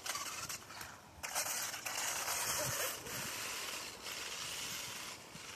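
Brushless electric RC truck (LRP Blast TX) speeding away over paving stones: a noisy rush of knobbly tyres on the stones and motor, loudest for about two seconds from a second in, then fading as it gets farther off.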